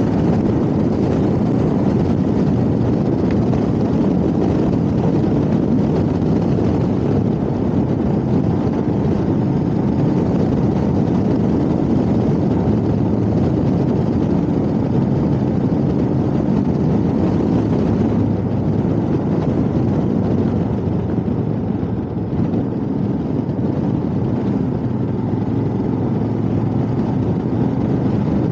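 Motorcycle engine running steadily at cruising speed, with wind and road noise mixed in.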